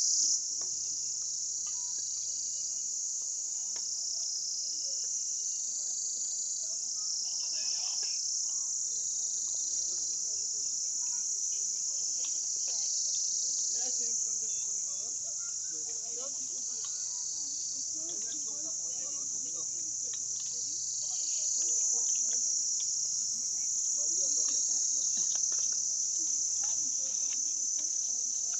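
A steady, high-pitched chorus of insects chirring, swelling slightly about twenty seconds in.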